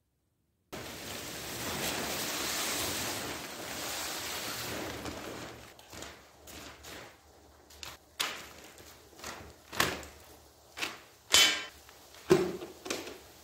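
Footsteps and knocks as tools and supplies are set down one by one on a tarp over a concrete floor, after a few seconds of soft rustling. The loudest knock, near the end, has a short ring.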